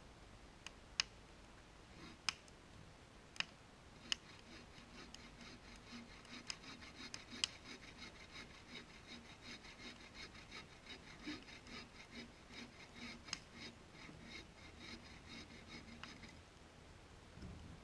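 A hand saw cutting through a log for firewood, faint: a few sharp clicks first, then steady back-and-forth strokes at about two a second that stop shortly before the end.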